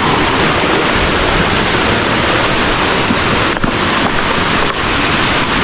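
Waterfall rushing: a loud, steady roar of falling water close to the microphone.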